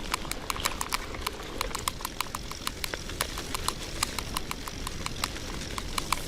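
Old KhVZ bicycle clicking steadily as it is ridden over a rough wet dirt track, about five or six sharp clicks a second over low rolling noise.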